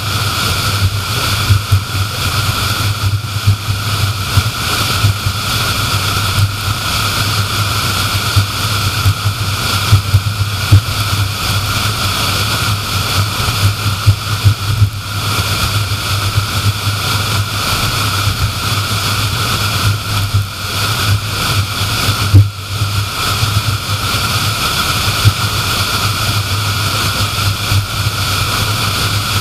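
Steady road noise of a car cruising at speed: tyre and engine hum with a low drone, broken by a few brief thumps from the road surface.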